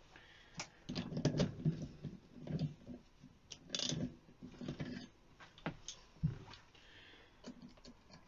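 Scattered metal clicks and knocks of tools and a bicycle wheel being handled in a bench vise, with busier clusters about a second in and again around four seconds in.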